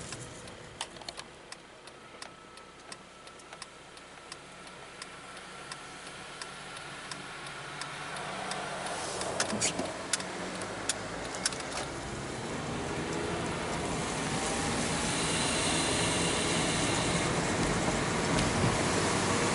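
Car engine and road noise heard from inside the car, growing steadily louder as the car gathers speed, with scattered light clicks over the first dozen seconds.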